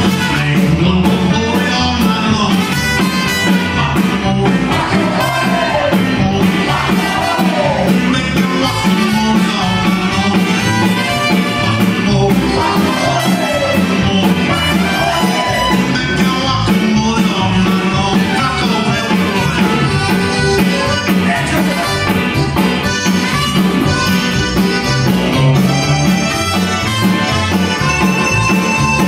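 Tex-Mex band playing live, with trumpet, electric guitar, keyboard, drum kit and button accordion, over a steady beat.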